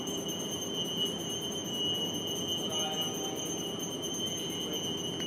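Temple bell ringing steadily, a high ringing tone without a break, over a faint murmur of voices.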